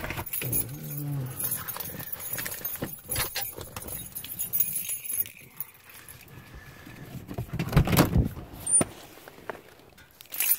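Keys jingling with a run of clicks and knocks while someone gets out of a car, then a heavy thump about eight seconds in and a sharp car-door slam at the very end.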